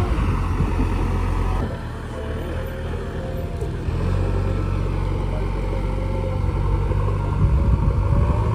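Heavy diesel engine of a tractor or backhoe loader running with a steady low-pitched hum. It drops abruptly about a second and a half in and picks up again at about four seconds.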